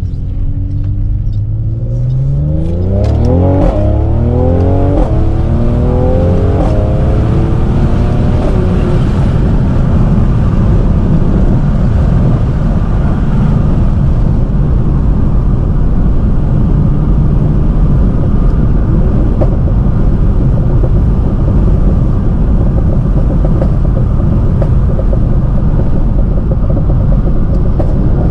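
Tuned Mercedes-AMG C43's twin-turbo V6 accelerating hard. Its pitch climbs and drops back several times through quick upshifts in the first several seconds, then settles into a loud, steady drone at speed.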